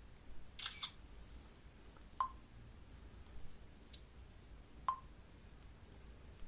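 Faint smartphone handling: a quick cluster of sharp clicks about half a second in, then two short high pips about two and a half seconds apart, like phone touch or keypad tones.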